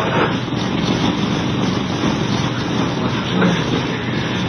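Steady mechanical rumble and hiss in a cargo ship's wheelhouse, from the ship's main engine working astern.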